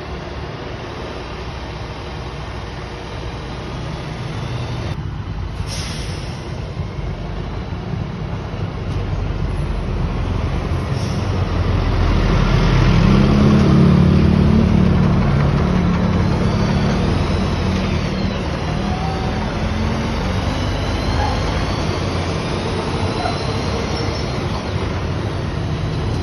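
Mitsubishi Fuso Super Great truck's diesel engine running with a steady low drone that grows louder toward the middle and then eases slightly. Short air hisses come about six and eleven seconds in.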